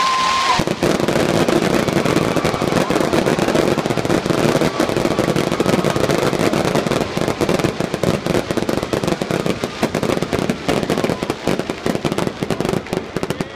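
Fireworks going off in a dense, rapid barrage of bangs and crackles, thinning to more separate pops near the end.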